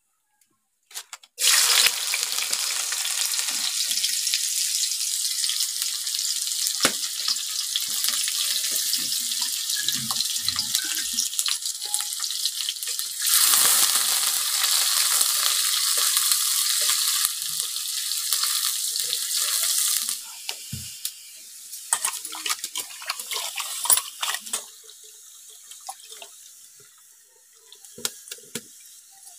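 Hot oil sizzling loudly in an aluminium kadai as chopped vegetables fry, starting suddenly about a second and a half in and growing louder for several seconds in the middle. It then dies down to a low sizzle with scattered clicks and scrapes of the spatula against the pan.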